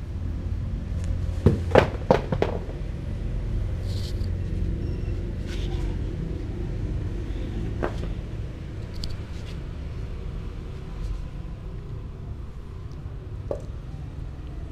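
Sharp knocks and clicks on a plastic plate close to the microphone, with a cluster of several about two seconds in and a few single ones later, over a steady low rumble.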